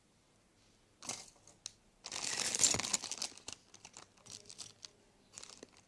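Clear plastic packaging crinkling as it is handled. A short rustle comes about a second in, then a louder burst of crinkling from about two to three seconds, followed by scattered small crackles and clicks.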